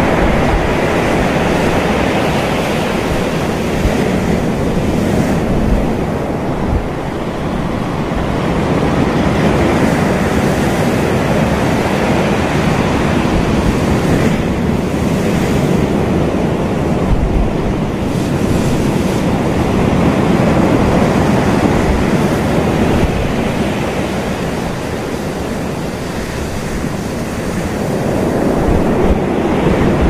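Ocean surf: small waves breaking and washing up a sandy beach in a continuous rush of foaming water that swells and eases about every ten seconds.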